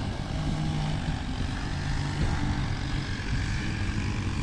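A vehicle engine running steadily: a low even hum with a constant hiss above it.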